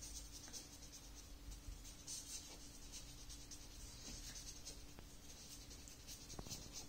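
Felt-tip marker writing on a sheet of paper: faint, soft scratching pen strokes, over a faint steady hum.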